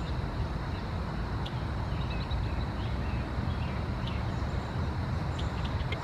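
A steady low outdoor rumble, with short, faint chirps from a male red-winged blackbird scattered through it.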